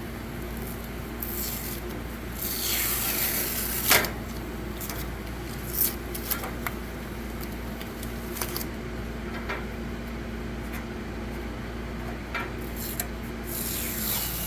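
Heavy duct-like shipping tape being peeled off a printer's housing: a long rasping pull about two seconds in that ends in a sharp snap, scattered small clicks and taps, and another rasping pull near the end.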